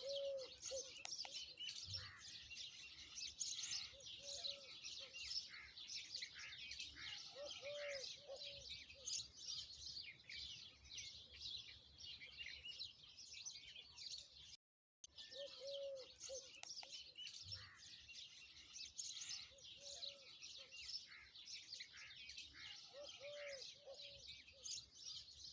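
Dense chorus of many small birds chirping and twittering, with a low, short hooting call of two or three notes every few seconds. It drops out briefly about halfway through and picks up again.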